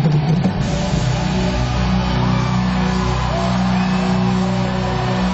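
Live concert music played loud through an arena sound system, carried by a steady low droning bass note.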